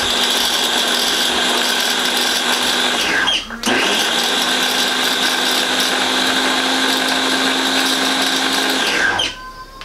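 Beaba Babycook baby food maker's blender motor whirring as it purees green beans, in two long pulses: it stops briefly about three seconds in, starts again, and winds down near the end.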